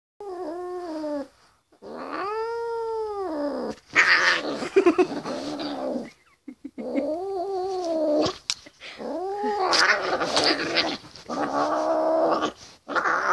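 An angry female cat yowling: about six long drawn-out calls in a row, each rising and then falling in pitch, some turning rough and growly.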